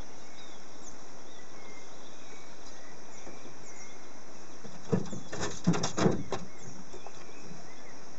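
Gill net being hauled by hand over the side of a canoe: a short cluster of splashes and knocks about five seconds in, lasting a second and a half. Under it, a steady outdoor hiss with faint bird chirps.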